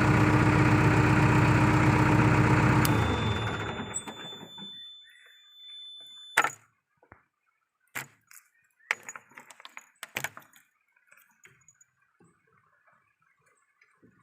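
VMT 860 road roller's diesel engine running steadily, then switched off about three seconds in and winding down to a stop. A thin high tone follows for a few seconds, then several scattered clicks and knocks.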